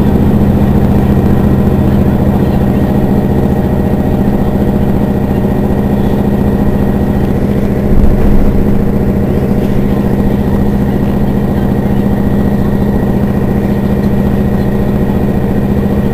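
Mercedes-Benz Citaro city bus's rear-mounted diesel engine idling steadily while the bus stands at a stop, with a brief louder moment about halfway through.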